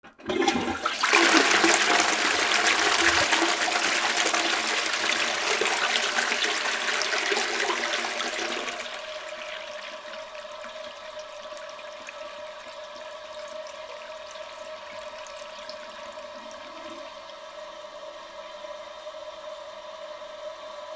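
Toilet flushing: a short click, then a loud rush of water for about eight seconds, dropping to a quieter steady flow of water with a faint held tone as the cistern refills.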